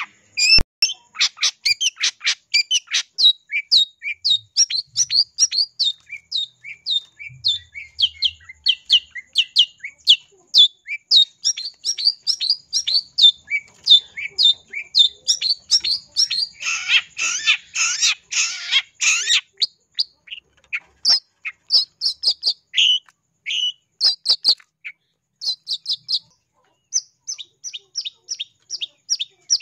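Long-tailed shrike calling in a fast run of short, sharp chirps, about three or four a second. A little past halfway it breaks into a couple of seconds of harsh, rasping chatter, then goes on with sparser chirps and short pauses.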